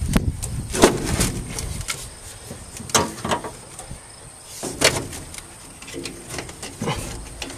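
A few separate metallic knocks and scrapes, one to two seconds apart, from hand tools working on an old truck.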